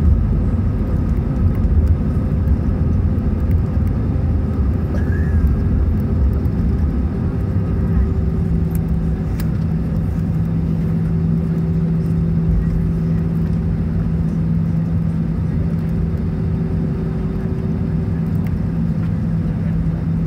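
Cabin noise inside an Airbus A320 rolling out and taxiing after landing: a low rumble of wheels and engines that eases as the aircraft slows, with a steady hum setting in about eight seconds in.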